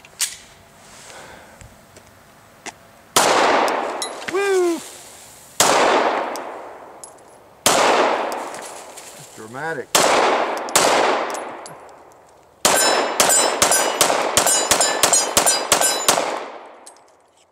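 9mm shots from a Glock 19 Gen 4 pistol firing 115-grain ammunition at steel targets. Five spaced single shots come first, each with a long echoing tail, and a hit steel target rings between some of them. From about 12 seconds in, a fast string of shots and pings off steel plates follows.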